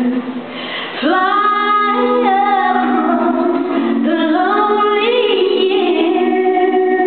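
A woman singing a slow gospel hymn live through a concert sound system, in long held notes with no instruments plainly heard. A new phrase begins about a second in and another near the middle.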